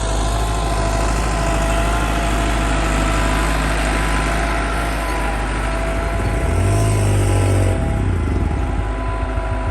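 Massey Ferguson 385 tractor's diesel engine running steadily while ploughing, its note shifting briefly about seven seconds in.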